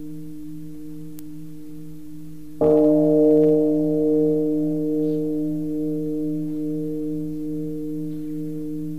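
A large Buddhist temple bell is struck once about two and a half seconds in, over the steady hum still ringing from an earlier stroke. Its deep tones ring on with a slow wavering and fade gradually.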